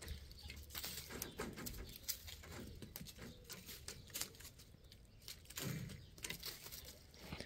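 Chickens moving about on a wood-shaving floor, a faint scatter of ticks, scratches and rustles.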